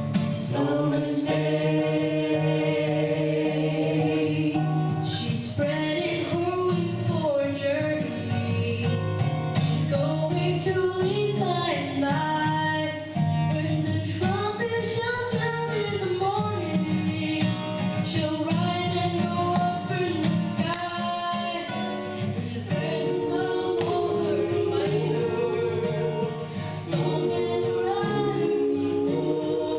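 A family gospel group singing in harmony with instrumental accompaniment, the voices carrying a melody line over steady low chords.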